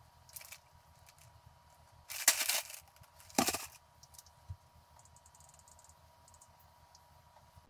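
Plastic packaging being handled: two loud crackling rustles, about two and three and a half seconds in, with fainter rustles and clicks around them and a quick run of faint ticks near the middle.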